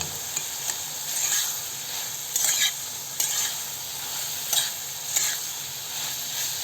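Boiled raw jackfruit pieces sizzling in mustard oil in a kadai, stirred in short scraping strokes about once a second as the curry is cooked uncovered until it dries.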